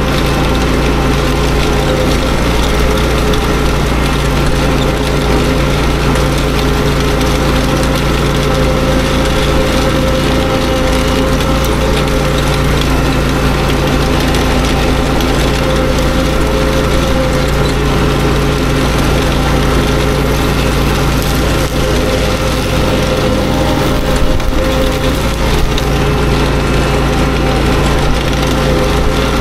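Walk-behind power rake (dethatcher) working a lawn: its small engine runs at a steady speed while the tines rake through the grass.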